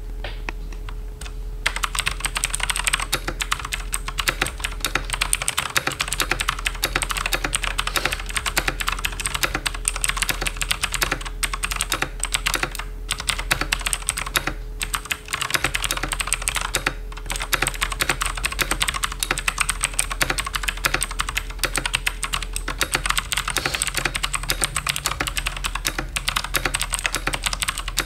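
Fast continuous typing on a Team Wolf Vodstorm mechanical keyboard with Outemu Blue clicky switches: a dense run of sharp, loud clicks, one with each keystroke, starting about two seconds in and broken by a few brief pauses.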